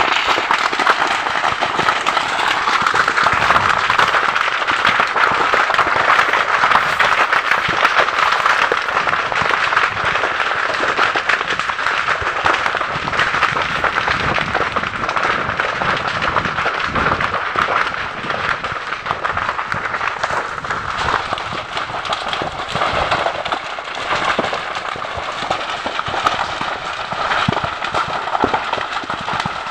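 Dry undergrowth and brush burning in an open fire, a dense, continuous crackling and popping of the flames.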